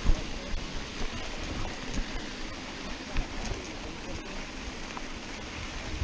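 Steady rushing noise of wind on a handlebar camera's microphone and mountain-bike tyres rolling over a dirt road, with a few low knocks as the bike jolts over bumps.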